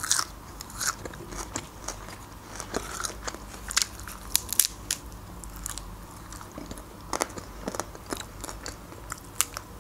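Close-up biting and chewing of lahmacun, a thin Turkish flatbread with minced-meat topping: a run of short, crisp crunches and crackles as the bread is bitten and chewed.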